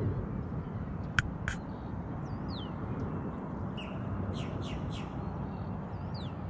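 Birds calling: short high calls sliding downward, and a quick run of four calls about four seconds in, over a steady low rumble. Two sharp clicks come just after a second in.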